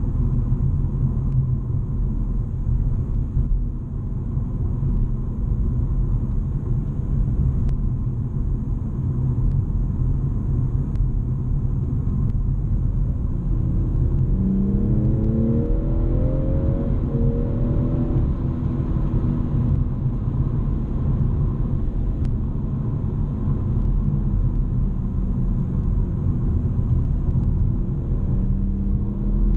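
In-cabin sound of a BMW M240i's turbocharged 3.0-litre straight-six cruising, a steady low rumble of engine and road noise. The engine note climbs briefly about halfway through.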